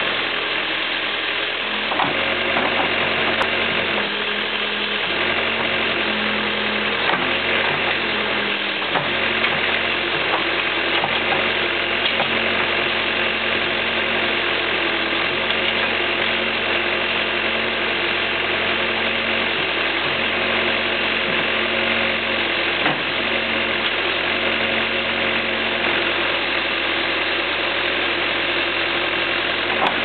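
1980 Case 580C backhoe's engine running steadily while the boom and bucket are worked, with a few faint knocks along the way.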